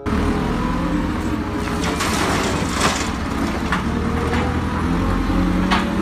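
JCB backhoe loader's diesel engine running steadily, with a few sharp knocks from the machine at work.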